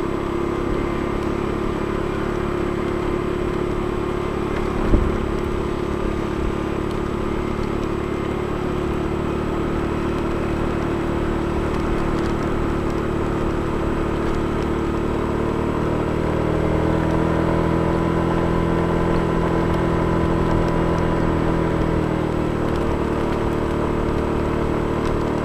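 Scooter motor running steadily at a slow cruise, its hum rising a little in pitch and settling back again between about sixteen and twenty-two seconds in. A single knock sounds about five seconds in.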